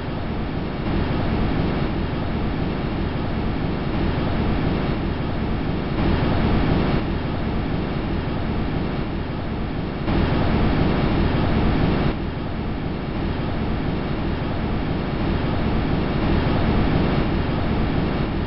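Huygens probe's audio from its parachute descent through Titan's atmosphere: a steady rushing, rumbling noise that jumps up or down in loudness every few seconds.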